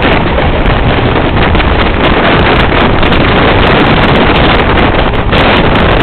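A train passing close by, heard as a very loud, steady rushing noise with heavy wind buffeting on the microphone.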